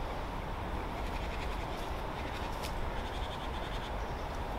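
Steady outdoor background noise with a few faint, short rustles of undergrowth underfoot.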